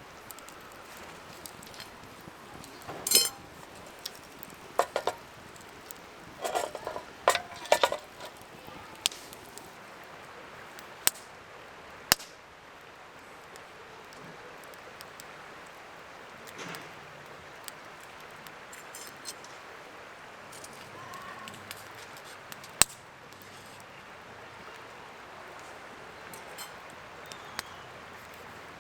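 Scattered clinks, taps and knocks of hard camping gear being handled, busiest a few seconds in and then single sharp ticks, over a steady background hiss.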